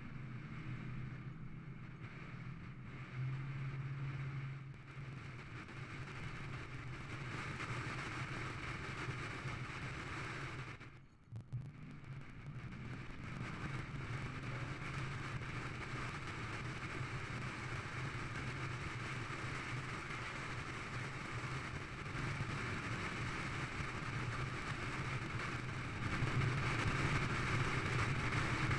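Steady engine and road noise from inside a vehicle driving at highway speed, with a low hum and wind rush. It dips briefly about eleven seconds in and grows louder near the end.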